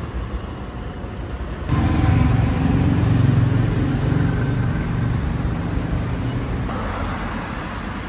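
City street traffic ambience: a steady rumble and hiss of passing road vehicles. It jumps to a heavier low rumble about two seconds in and eases off again near seven seconds.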